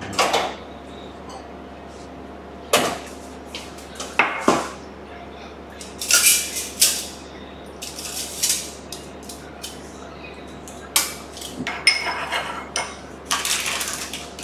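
Metal spoon and small bowl clinking and knocking on and off as melted dark chocolate is stirred, a dozen or so separate sharp clicks and knocks, some with a short ring.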